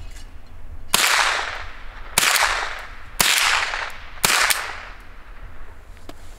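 Four shots from a Savage 7H semi-automatic .22 rifle, fired about a second apart, each followed by a trailing echo.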